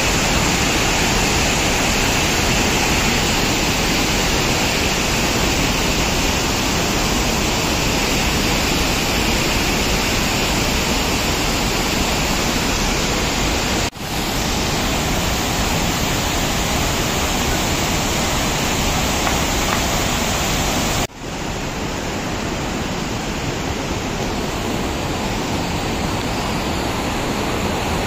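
Rushing white water of the Kaveri River rapids, a loud steady roar that cuts out for an instant twice, about halfway and about three-quarters through.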